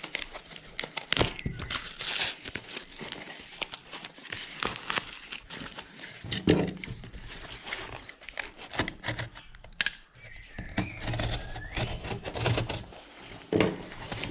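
Plastic postal mailer and its packing tape being torn and crinkled by hand, with a utility knife slitting the bag open: irregular crinkling, tearing and scraping, with short louder rustles.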